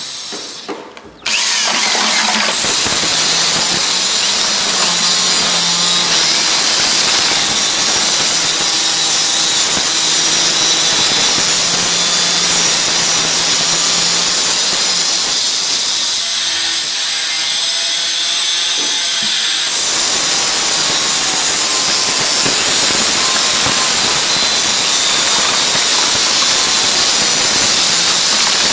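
Corded electric drill with a paddle mixer running in a plastic bucket, stirring wall texture compound, with a steady high whine. It stops briefly about a second in, then runs on steadily, easing off for a few seconds in the middle.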